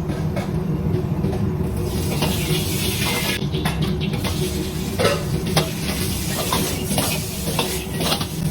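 Food sizzling in a hot pan while being stirred, with repeated clicks and scrapes of a utensil against the pan over a steady low hum.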